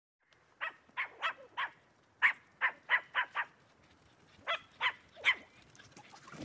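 A dog barking: about a dozen sharp, fairly high-pitched barks in three runs, with short pauses between them.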